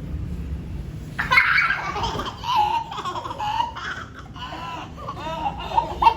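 Children laughing and giggling in high, excited voices, starting about a second in.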